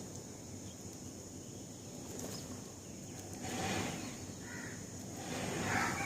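House sparrows chirping over a steady low background rumble: a short burst of chirps a little past the middle, then a denser, louder spell of chirping near the end.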